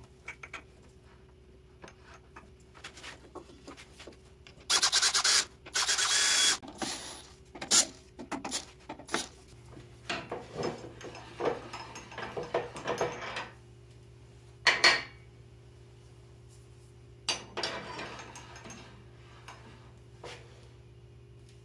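A wooden workpiece being fitted into a chuck on a wood lathe: two loud scraping rubs of wood on wood about five and six seconds in, then scattered clicks and knocks as the metal tailstock fittings are handled. A low steady hum comes in about ten seconds in.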